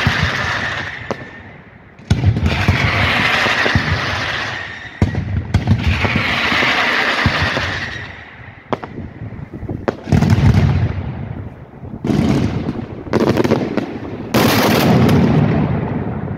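Fireworks display: aerial shells bursting one after another, each sudden bang followed by a couple of seconds of dense crackling.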